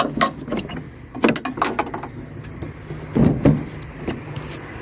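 Plastic headlight unit of a Peugeot Boxer van being tapped sideways out of its mounting: a few short knocks and plastic clatter, with a small cluster of them near the end, as it slides free of its clips.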